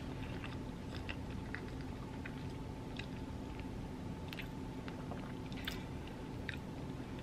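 A person chewing seafood-boil food close to the microphone, with scattered small wet clicks of the mouth over a steady low hum.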